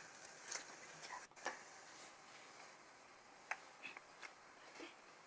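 Bubbly glue slime being handled, giving faint scattered clicks and small pops, about two near the middle and a few more toward the end.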